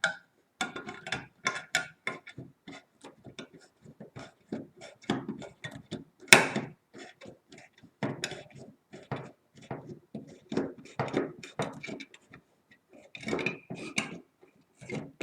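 Multi-tool can opener blade cutting its way around the lid of a tin can in short upward levering strokes: an uneven run of sharp metallic clicks and crunches, several a second, a few louder than the rest.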